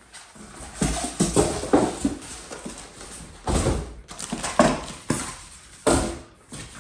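Unboxing a portable gas grill: a cardboard box and polystyrene packing blocks being pulled off and set down on a stone countertop, giving irregular knocks, scrapes and rustles.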